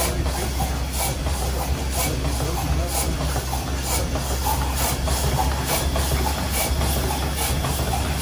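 Stationary steam engine driving the machine shop's line shaft, running steadily with a low hum and a regular hiss of steam about twice a second.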